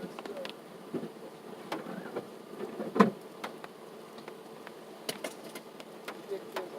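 Irregular taps of meltwater and ice dropping from ice-laden trees onto the car, one louder knock about three seconds in, over a steady buzzing hum.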